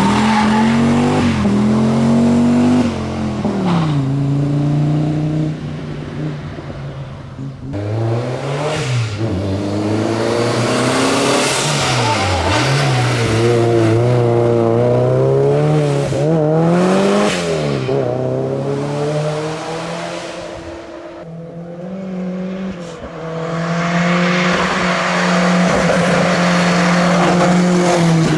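Classic rally car engines revving hard on a stage, the pitch climbing and dropping again and again with gear changes and lifts off the throttle. The sound fades twice and builds again as the cars pass.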